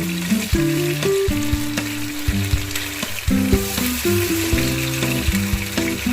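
Masala-coated fish pieces sizzling as they fry in hot oil in a kadai on high flame, a steady hiss with a few sharp clicks. Background music plays over it.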